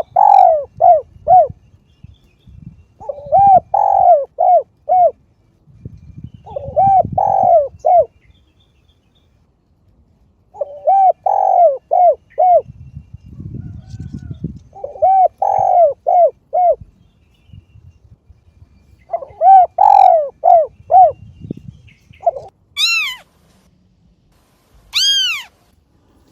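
A bird calling in short phrases of four or five quick notes, repeated about every four seconds. Near the end a cat meows twice, higher and longer.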